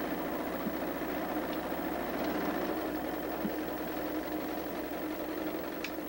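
An engine running steadily at idle, a constant drone with a few faint clicks on top.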